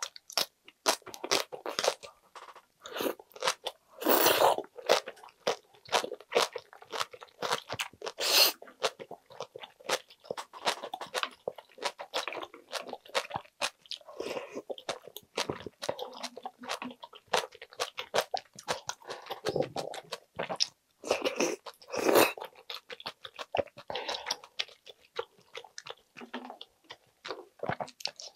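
Mouth eating sounds: crunching and chewing of aged kimchi in many irregular small clicks, with a few louder, longer wet slurps of soup from a wooden spoon.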